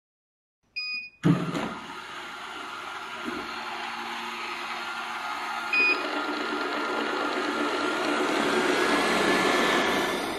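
Blaupunkt XEasy robot vacuum beeping as it starts, then its suction motor and brushes running with a steady whir. It beeps briefly again about six seconds in, and a faint whine rises slowly near the end.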